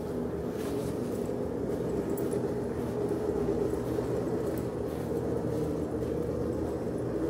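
Steady low hum with a few faint, irregular ticks, typical of a building's ventilation heard while walking down a hallway.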